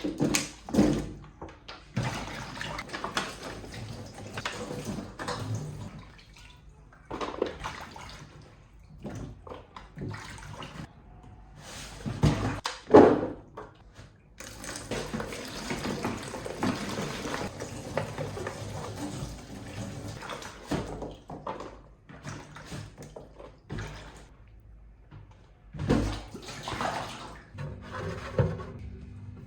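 Water running in several bursts that start and stop, with a few sharp knocks in between.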